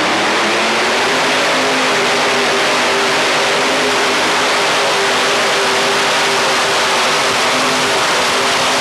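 Modified pulling tractor's engine running loud and steady.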